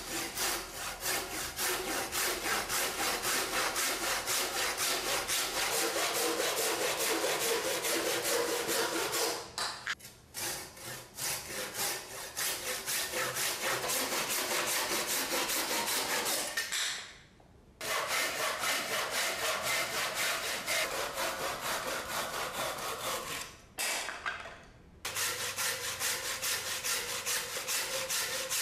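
ZETSAW Heavy Duty H-333 single-edged Japanese saw (kataba) with coarse teeth, cutting wood with rapid back-and-forth strokes and a few short breaks. It cuts a softwood post first, then, after a longer pause, a hardwood beam.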